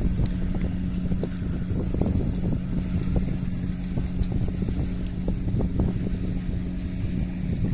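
Wind buffeting the microphone over a steady low engine hum, with scattered small clicks.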